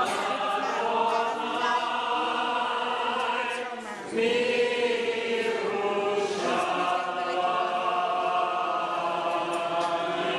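A congregation singing a liturgical melody together as the Torah scroll is taken from the ark, with a brief break just before four seconds in, then the singing picks up again.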